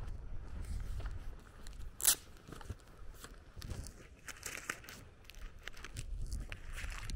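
Close rustling and crinkling from a walker's footsteps and clothing handling the camera, with a sharp click about two seconds in.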